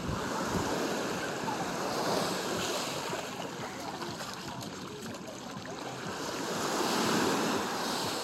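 Small waves breaking and washing over the sand at the water's edge, swelling and fading a few times and loudest near the end.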